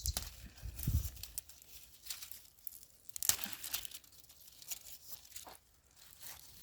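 Dry cowpea plants and pods rustling and crackling in uneven bursts as they are pulled and picked by hand.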